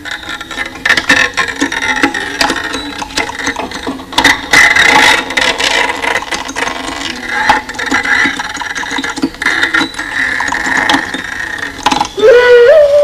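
Animated-film soundtrack of dense clattering and rattling sound effects over a steady drone, ending in a short, loud tone that rises in pitch.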